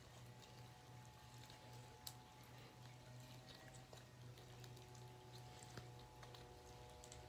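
Faint wet clicks and pops of foam-bead slime being squeezed and kneaded by hand, over a steady low hum.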